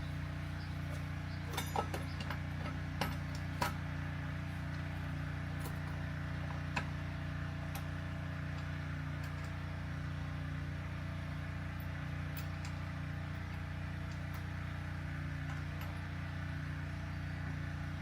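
Steady low hum in the room, with a few light clicks and taps in the first four seconds and one more about seven seconds in, from small metal bike hardware being handled while the front wheel is fitted.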